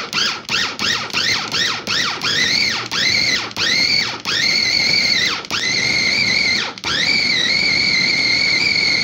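Surhan 6-litre electric meat chopper's 1000 W motor being pulsed on and off by its top button, mincing meat: short whines that each rise and fall in pitch, about three a second, lengthening into longer runs and, from about five and a half seconds in, a nearly steady high whine broken once briefly.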